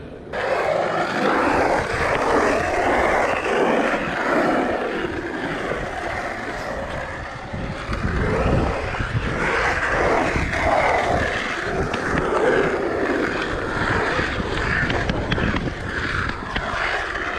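Skateboard wheels rolling over a pump track, a continuous rumbling scrape that swells and fades as the board rides the track.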